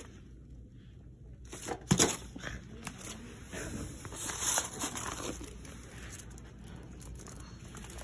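A sharp knock about two seconds in, then scattered rustling and crinkling, over a low steady hum.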